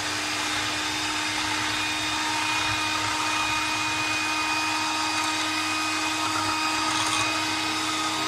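Electric hand mixer running steadily, its beaters whipping cream.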